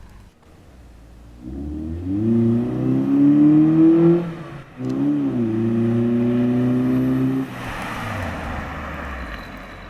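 1993 Honda Accord LX with an exhaust turbo whistle accelerating past, its engine note climbing. There is a short break for a gear change about four and a half seconds in, then the note holds steady. Near the end it gives way to a rush of passing noise that fades.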